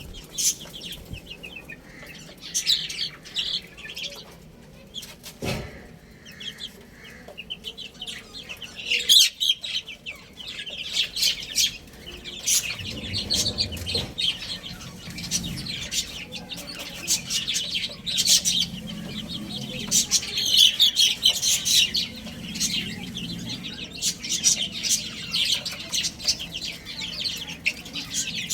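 A group of baby chicks peeping, with many short, high-pitched calls crowding one another. Lower clucking joins in from about halfway through.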